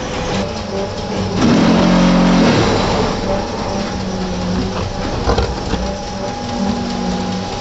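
Concrete brick-making machinery running: electric motors humming steadily as the conveyor and pan mixer run, with the mixer's paddles churning and rattling the damp cement mix. The hum swells louder for about a second, starting about a second and a half in.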